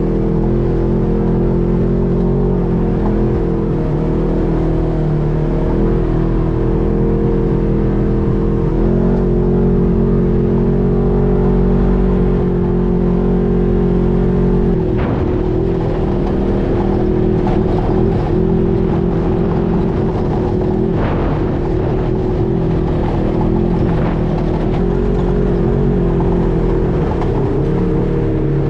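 UTV engine running steadily as the side-by-side drives along a sandy trail, its pitch holding fairly level with small shifts. From about halfway in, short knocks and rattles come through as the vehicle rides over rougher ground.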